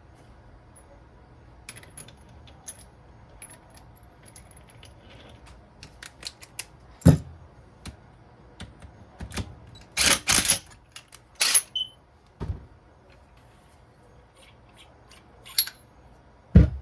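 Metal tools and engine parts clinking and clattering on a workbench during a motorcycle engine teardown: scattered light clicks and several sharp metallic knocks, the loudest about seven seconds in, in a quick cluster a little after ten seconds, and just before the end.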